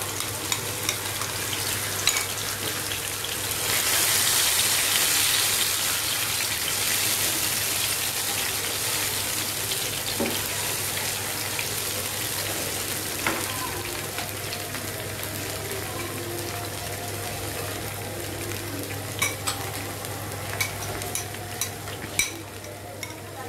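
Marinated hilsa fish pieces sizzling in hot oil in a nonstick frying pan. The sizzle swells about four seconds in as the fish and its spiced marinade go in, then slowly eases. A slotted spatula scrapes and taps against the pan, with more clicks near the end.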